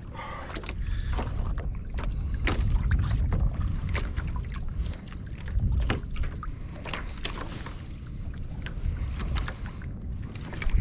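Wind rumbling on the microphone aboard a drifting kayak, with water lapping and slapping against the hull and scattered small knocks at irregular times.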